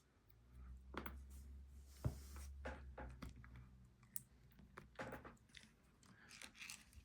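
Faint scattered clicks and taps of a small pin-tumbler lock and its parts being handled on a bench, with a low hum for the first few seconds.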